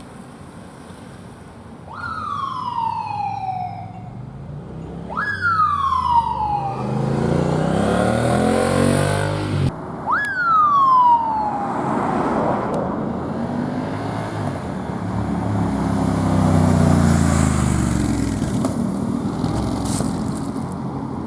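Police motorcycle siren sounded in three short blasts about 2, 5 and 10 seconds in, each jumping up and then sliding down in pitch. Between and after the blasts, engine noise rises and falls in pitch as the vehicles accelerate and slow.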